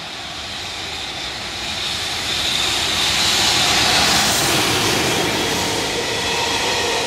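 EF210 electric freight locomotive hauling a container train approaches and passes close by. Its running noise and a high steady whine build to a peak about four seconds in, then the container wagons keep rolling past.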